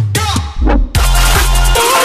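Electronic music with a heavy bass line: a short break with sweeping sounds, then the beat comes back in about a second in.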